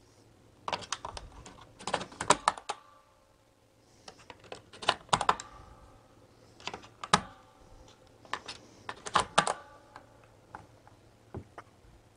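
Sharp plastic-and-metal clicking as 18650 lithium-ion cells are pushed into the spring-loaded slots of two Nitecore battery chargers, one cell after another. It comes in about five short bursts of clicks with quiet gaps between, then a few lone ticks near the end.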